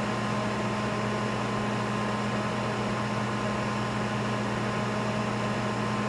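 A 1988 Sharp Carousel II microwave oven with its outer shell off, running at full power: a steady hum under the even rush of its cooling fan. It is drawing about 10 amps, right at its 1.2 kW rating, a sign that the replacement magnetron is working properly.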